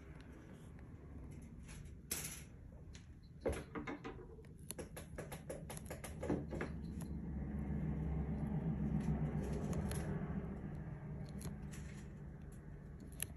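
Small clicks and crunches of a baby red-footed tortoise biting and tearing a hibiscus leaf, scattered at first, then a quick run of them in the middle. A low hum swells and fades in the background in the second half.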